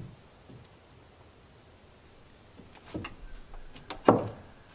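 Irregular wooden knocks and taps as trim boards are handled and fitted around a window frame, with a few clicks about three seconds in and one louder knock about four seconds in.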